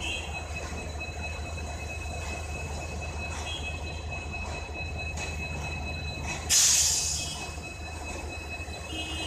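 Diesel-hauled passenger train standing at the platform: a steady low engine rumble with a thin high whine over it. About six and a half seconds in comes a sudden loud hiss that dies away over about a second.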